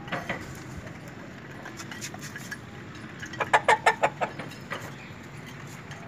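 Desi golden Misri chickens clucking. A short call comes at the very start, and a quick run of about half a dozen loud clucks comes a little past halfway.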